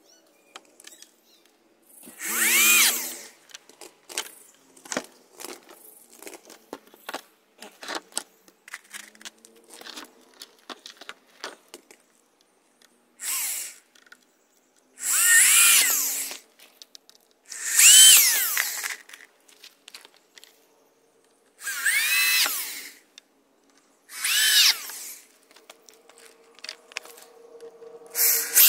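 Power drill running into pine 1x4 boards. It goes in six short runs of a second or so, each whine rising and then dropping in pitch, with small handling clicks and knocks of wood between them.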